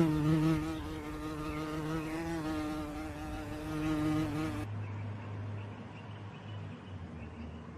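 Flying insect buzzing: a steady, slightly wavering buzz that cuts off abruptly about five seconds in, followed by a fainter low hum.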